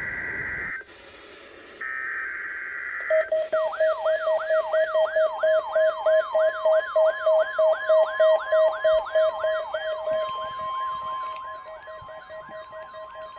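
NOAA Weather Radio SAME header data bursts, the harsh two-tone digital screech of the Emergency Alert System, heard twice in the first few seconds. Then weather radio receivers' alert alarms sound together: a rising whoop repeating about two and a half times a second over a pulsing beep, joined a couple of seconds later by a steady tone, signalling reception of the Required Weekly Test.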